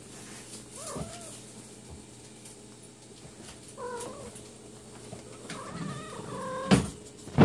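Sphynx cats meowing: several short, high meows about a second in, about four seconds in and again near the end. A loud bump from handling comes near the end.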